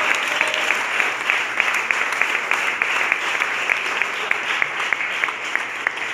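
Congregation applauding, many claps falling into a quick steady beat; the applause slowly fades.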